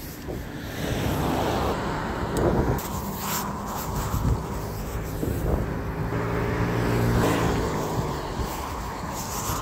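Road traffic heard from a moving bicycle: wind and road noise rumble throughout, and a motor vehicle's engine hums steadily alongside from about three seconds in until near eight seconds in.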